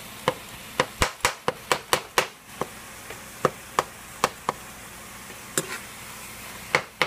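Spatula knocking and scraping against a frying pan while stirring and breaking up browning ground meat, in quick irregular strikes that thin out after about four seconds, over a steady sizzle.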